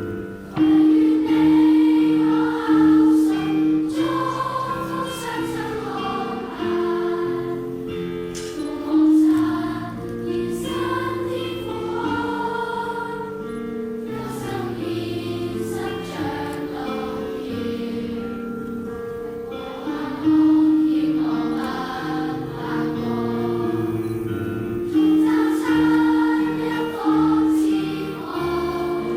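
A choir singing a Chinese hymn in several parts, with long held notes, recorded live with the room's own acoustics.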